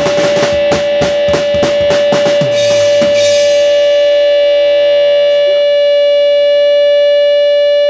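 Rock band ending a song: drum kit hits over electric guitar, the drums stopping about three seconds in and leaving one sustained guitar tone ringing on. The tone cuts off suddenly at the end.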